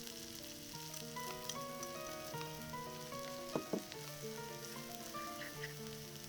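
Food sizzling as it fries in a pan, with two sharp knocks a little past halfway, over background music of held melodic notes.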